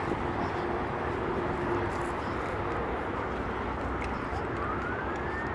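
Steady noise of a running vehicle, with a faint whistle that rises and then falls near the end.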